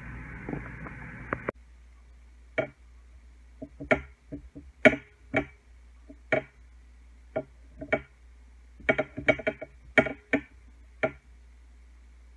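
Irregular sharp taps and clinks against a ceramic plate as a tomato slice is pressed and turned in flour and shaken off over the plate, some in quick clusters. A steady hiss cuts off about a second and a half in.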